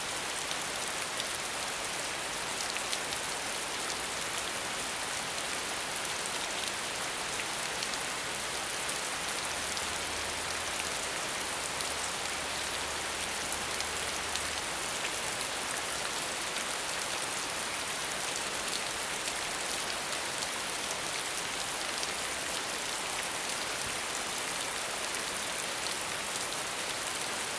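Steady rain falling, an even hiss with the fine patter of drops on a surface.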